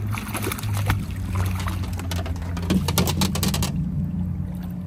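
Splashing and slapping water from a hooked fish thrashing at the surface, a dense run of quick strokes that stops suddenly about three and a half seconds in, over a steady low hum.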